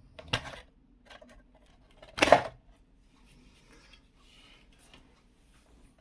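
Short clicks and knocks of hands working inside the opened base of a mixer grinder, pulling wire connectors off terminals; the loudest click comes about two seconds in.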